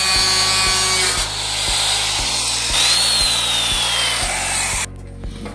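Handheld electric cutter with an abrasive disc grinding through the sheet-iron wall of a tin, a loud, steady, harsh noise with a whine over it. About three seconds in the whine falls in pitch, and the noise stops abruptly near the end.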